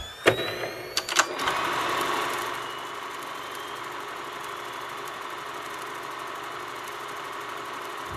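A few sharp clicks or knocks in the first second and a half, then a steady mechanical hum that holds unchanged.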